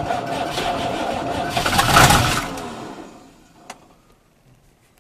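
Fiatagri F100 tractor's diesel engine cranked by the starter on a cold start. It runs for about three seconds, gets louder toward a peak, then winds down to a stop, followed by a single sharp click.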